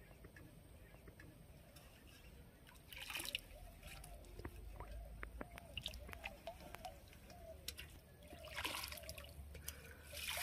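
Pond water sloshing and splashing as a metal plate is dipped in and plate-loads of water are flung back out, with drips and trickles between. The splashes come in two bursts, about three seconds in and again near nine seconds.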